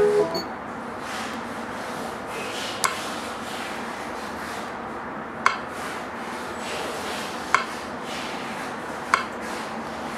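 Four light, sharp clicks a couple of seconds apart, a plastic stylus tapping the touchscreen of a car head unit, over a steady hiss.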